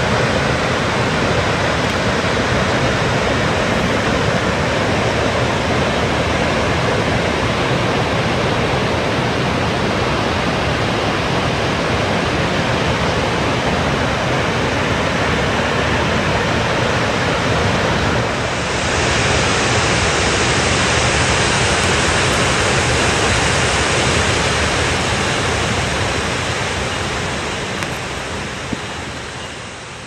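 Steady rush of falling water from the seven-tiered Fudō Nanae-no-taki waterfall, heard across the gorge. A little past halfway it dips briefly and turns hissier, then it fades out near the end.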